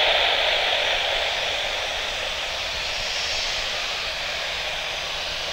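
Jet engines of a Batik Air Airbus A320 running at low power as it taxis into line-up position: a steady rushing jet noise that fades slightly.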